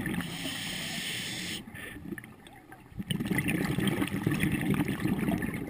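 Scuba diver breathing on a regulator, heard underwater through the camera housing. An inhale hiss runs for about a second and a half, a short pause follows, then the exhale bubbles for a couple of seconds.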